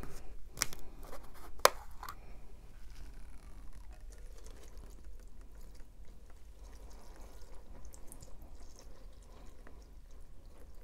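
Two sharp clicks near the start as the cap of a plastic gallon jug of 2% milk is twisted off. Then a steady stream of milk poured from the jug into a glass bowl of crunchy cereal runs on.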